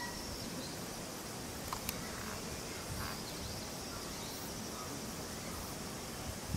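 Steady outdoor ambience: wind rumble on the microphone under a faint, steady high chirring of insects, with a few faint clicks about two seconds in.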